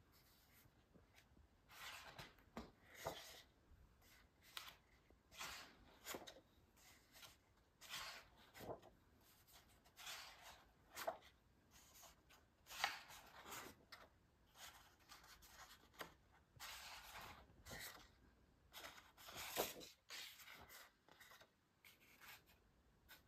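Faint paper rustling as the pages of a large printed lyric booklet are turned by hand, a long irregular series of soft swishes and rubs roughly every second.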